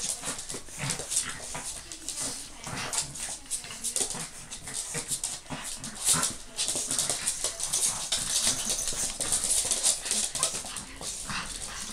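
Pug puppies play-fighting over a plush toy, with small whimpers and yips among short scuffling clicks of paws and claws on a laminate floor.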